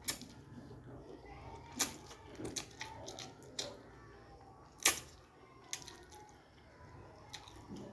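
A person slurping and eating fried instant noodles, with several short, sharp wet slurps and smacks over a low background. The loudest comes about five seconds in.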